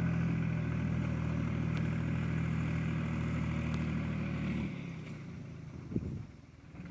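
Force Ox25 tractor engine running steadily, then falling away about two-thirds of the way through, with a short knock a second or so later.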